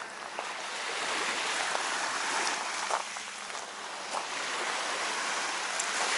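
Small waves washing onto a shell-covered beach: a steady wash of surf that rises and falls in level over a few seconds, with a few faint clicks.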